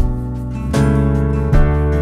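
Background music: held chords that change about three-quarters of a second in and again near the end, each change marked by a low beat.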